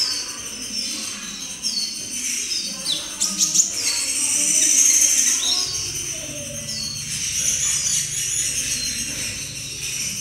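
Young kolibri ninja (brown-throated sunbird) singing a still-unformed practice song, typical of a juvenile learning to sing. It is a run of high, sharp down-slurred chips repeated about once a second, with a quick jumble of ticking notes about three seconds in.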